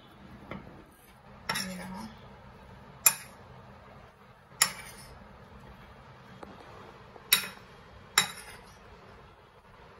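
A metal spoon stirring diced vegetables and chickpeas in a bowl, clinking sharply against the bowl's rim and sides about five times at irregular intervals.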